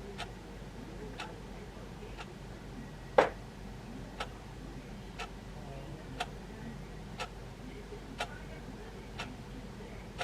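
A clock ticking steadily, about once a second, with one tick about three seconds in louder than the rest.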